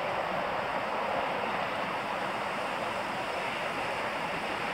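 Steady rush of a swollen, fast-flowing river running high with water.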